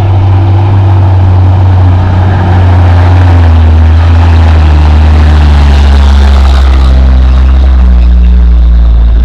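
Hino dump truck's diesel engine running loud as the truck drives past on a dirt haul road, its engine note dropping in pitch as it goes by.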